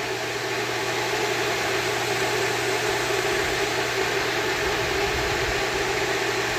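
A steady mechanical hum over a constant hiss, without change in pitch or level.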